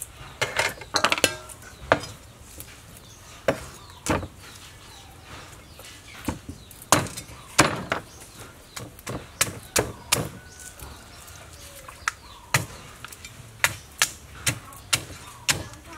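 Knife chopping into a large fish on a wooden chopping board: irregular sharp chops, some coming two or three in quick succession.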